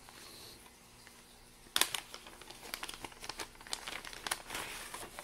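A thin clear plastic packaging bag crinkling as it is handled. It starts with a loud crackle a little under two seconds in, then goes on in irregular crackles.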